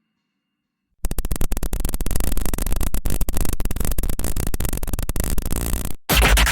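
A sound effect of loud, harsh crackling noise made of dense, rapid irregular clicks over a heavy low rumble. It starts abruptly about a second in, cuts out for an instant near the end, then comes back.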